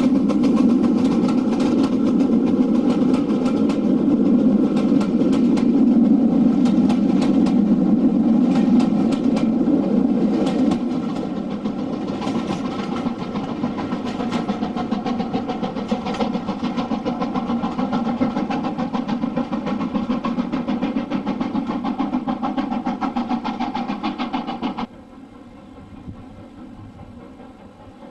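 LMS Black 5 4-6-0 steam locomotive working under steam, with a fast, continuous run of exhaust beats. The sound drops a little about ten seconds in and cuts off abruptly near the end, leaving a quieter rumble.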